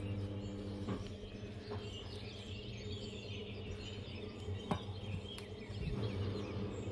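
Small birds chirping faintly over a steady low hum, with a few short clicks, the sharpest about three-quarters of the way through.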